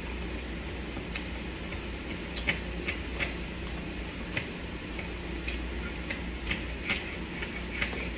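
Close-up chewing and mouth sounds of someone eating: irregular crisp clicks and smacks over a low steady hum.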